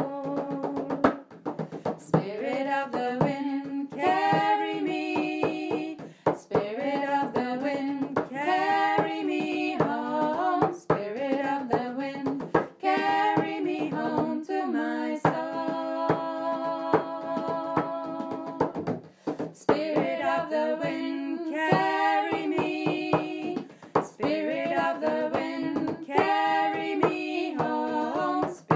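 Voices singing a slow, repetitive chant over a steady drum beat.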